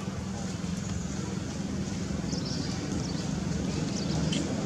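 Steady low engine hum with a few brief high chirps in the second half.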